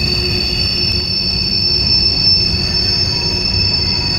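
Freight train cars rolling through a sharp curve: steel wheels squealing in steady high-pitched tones over a continuous low rumble.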